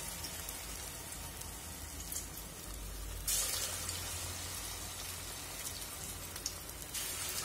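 Rava bonda batter balls deep-frying in hot oil in a stainless steel kadai: a steady sizzling hiss of bubbling oil, which turns louder about three seconds in and again near the end.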